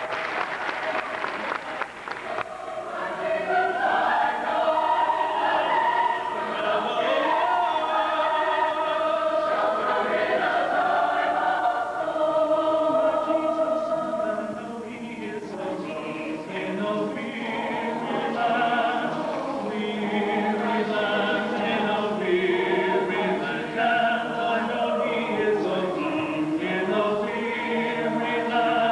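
A large choir of teenage singers singing in harmony, its massed voices coming in about two seconds in and holding long, sustained chords. Applause dies away in the first two seconds.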